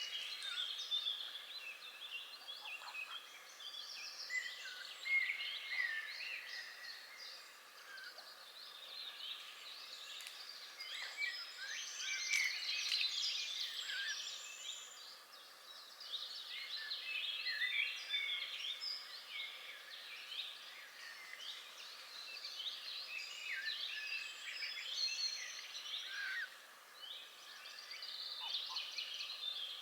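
A chorus of songbirds singing and calling together: many overlapping short chirps, whistles and trills.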